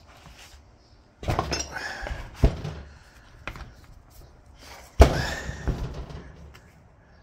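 Several sudden knocks and thuds from a metal ABS hydraulic unit being turned over and shifted about on a work surface, four in all, the loudest about five seconds in and followed by a brief scrape.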